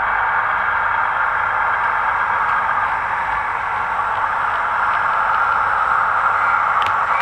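Sound-fitted 00 gauge model diesel multiple unit running out of the station: a steady hissy diesel engine drone from its small onboard speaker, mixed with the running of the model. A single sharp click comes near the end.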